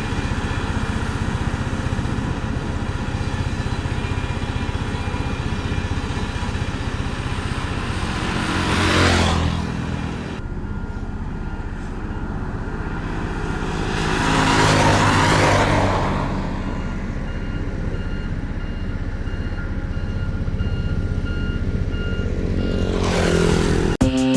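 Heavy road-paving machinery running steadily, with vehicles passing close by three times, each swelling and fading over a second or two. Partway through, a reversing alarm beeps evenly for several seconds.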